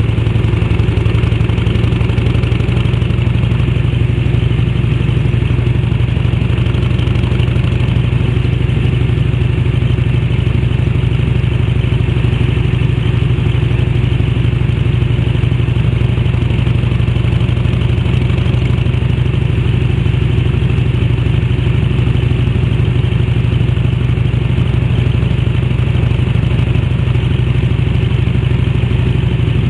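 Harley-Davidson Electra Glide's 1340 cc Evolution V-twin running at a steady cruise, its exhaust note through an aftermarket fish-tail silencer, heard from on board the moving sidecar rig.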